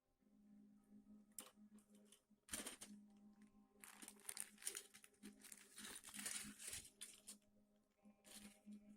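Faint crinkling and rustling of a model kit's packaging being handled, with scattered clicks and the densest rustling in the middle. A steady low hum runs underneath.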